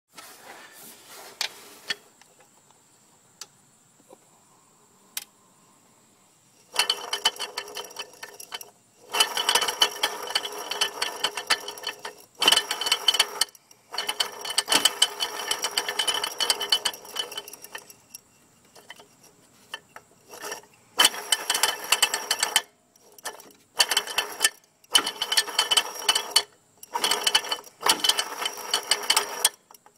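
AC compressor of a 2004 Mercedes-Benz C240, belt off, turned by hand at its pulley, giving loud rapid clicking. There are a few single clicks at first, then from about seven seconds in spells of fast clicking a second or few long, broken by short pauses. The owner wonders whether this is the compressor's death rattle.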